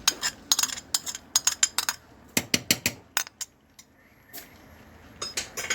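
A metal spoon clinking and scraping against a can of tuna in red sauce as it is emptied into the pot. A quick run of sharp clinks lasts about three and a half seconds, then a pause, then a few more clinks near the end.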